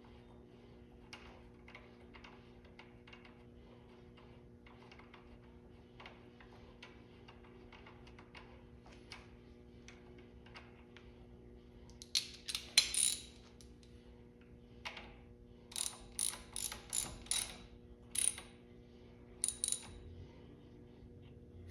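Hand ratchet clicking as the 14 mm bolt on the oil accumulator line is run down. The clicks are faint and spaced out at first, then come in louder quick bursts in the second half.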